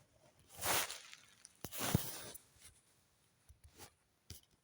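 A few scattered sharp clicks, the strongest about two seconds in, with a short soft rustle or breath-like hiss just before them.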